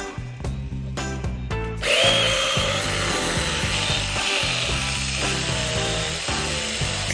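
Cordless mini chainsaw running on an 18V Makita-type battery, whining up about two seconds in and cutting into a wooden tree stump, its pitch wavering as the chain bites. Background music with a steady beat plays underneath.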